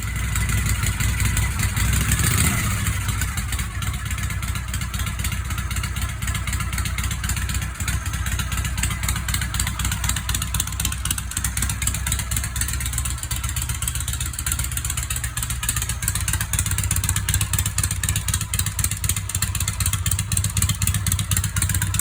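Harley-Davidson Knucklehead V-twin engine running at idle after repair of an abnormal engine noise, with a short blip of the throttle about two seconds in, then a steady idle.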